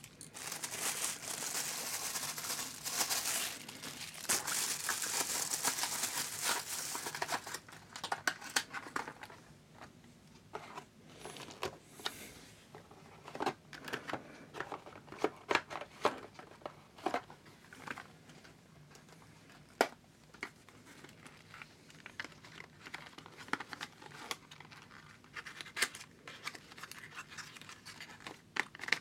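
Plastic wrapping crinkling steadily for the first several seconds, then scattered short rustles and taps as cardboard packaging inserts are handled and lifted out of a box.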